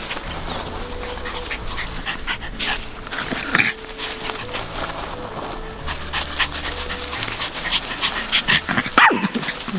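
A dog panting, with a couple of short whines.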